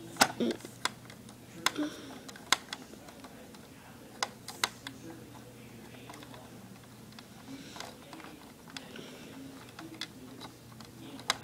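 Scattered sharp clicks and taps at irregular intervals, some in quick pairs, from small plastic RC-car parts being handled and screwed together with a small key-type screw tool.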